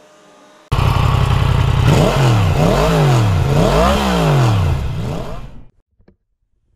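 Motorcycle engine revved three times, its pitch rising and falling with each blip of the throttle. It starts suddenly and fades out after about five seconds.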